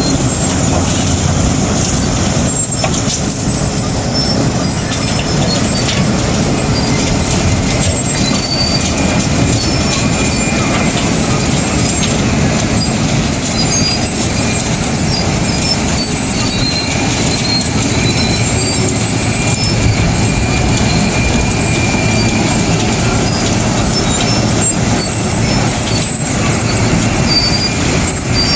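Heavy road-repair machinery running steadily: a continuous loud engine noise with a thin high whine over it.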